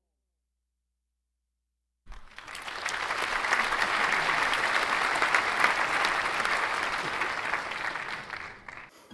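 Many people clapping, an applause sound. It comes in suddenly after about two seconds of silence, holds steady, and fades near the end.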